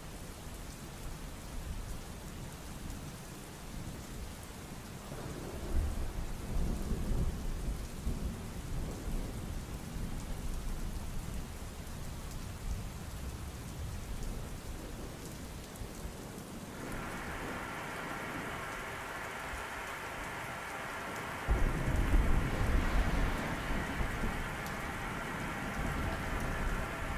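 Steady heavy rain with two rolls of thunder, one about five seconds in and a louder one about twenty-one seconds in. About seventeen seconds in, a vacuum cleaner's steady motor whine starts up under the rain.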